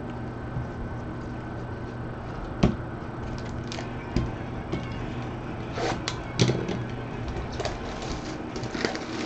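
Trading cards and cardboard boxes being handled on a tabletop: scattered light knocks and rustles over a steady electrical hum. The loudest knock comes about two and a half seconds in, and there is a small cluster of them around six seconds.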